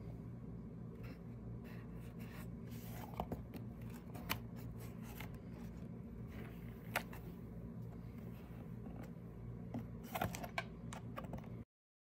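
A Scottish Fold kitten shifting about in a small cardboard box: scattered light scratches and taps on the cardboard over a steady low hum. The sound cuts off abruptly near the end.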